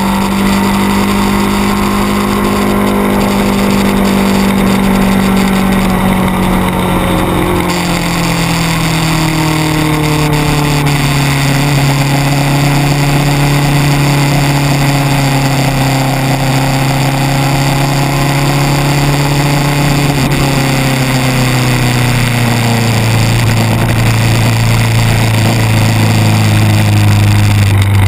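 600 cc sport motorcycle engine running continuously, its pitch falling slowly and steadily throughout as the revs come down, over a steady rushing hiss.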